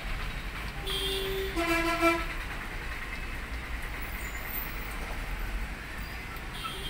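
A horn honks once, about a second in, for just over a second, in two tones with the second slightly lower. Under it runs a steady low rumble.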